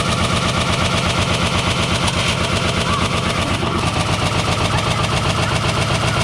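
Stripped-out GE washing machine wired straight to its motor, running flat out with a brick and debris tumbling in the drum: a loud, continuous mechanical run with a fast, even rattling rhythm.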